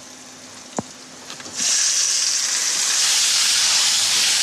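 Boneless rib of beef sizzling as it is seared in hot oil in a frying pan. The steady sizzle starts suddenly about one and a half seconds in, after a single light tick.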